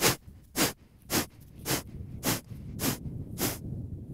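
Pranayama breathing: sharp, forced exhalations through the nose, seven of them about one every 0.6 s, with the in-breaths drawn passively and unheard between them. They are the close of the last of three rounds of ten exhalations.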